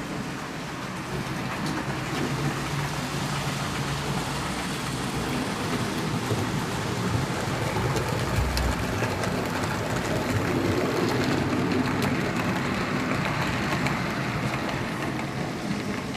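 HO scale model train running along the track, a steady rolling and rattling of small wheels on rail with a low motor hum, growing louder toward the middle and easing off near the end as it passes.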